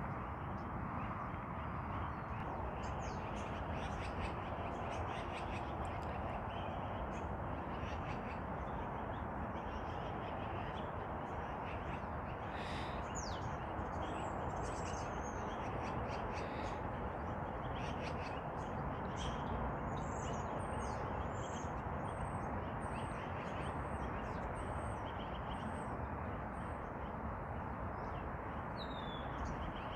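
Yellow-billed magpies calling, with short high chirps from smaller birds, over a steady background hiss. In the second half a string of short high notes repeats about once a second, and near the end there is a single falling whistle.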